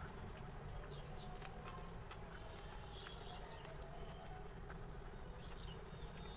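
Faint cricket chirping steadily, about five short high chirps a second, over a low hum, with a few faint clicks.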